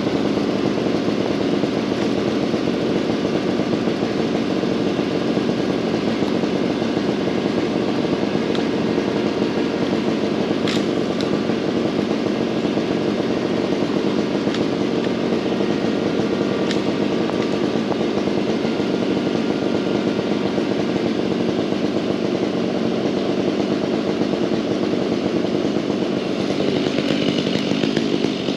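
Gas chainsaw running steadily.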